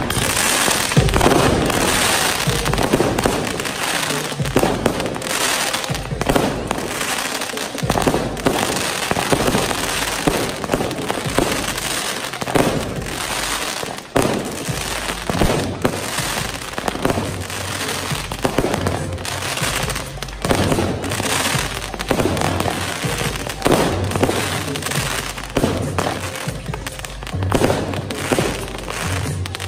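Fireworks going off in quick succession: many sharp bangs and crackles, one on top of another.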